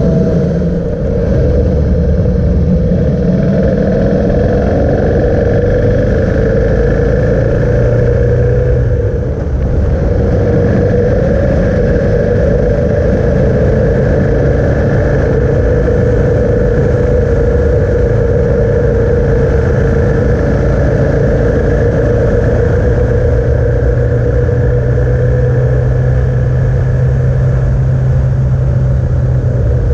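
Motorcycle engine running steadily at road speed over wind and road noise. Its note shifts in the first few seconds and dips briefly about nine seconds in before settling again.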